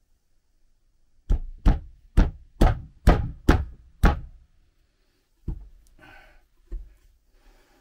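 Hammer blows knocking the bearing out of a tractor PTO bearing housing: seven sharp knocks in a quick run, about two a second, then two weaker, spaced knocks.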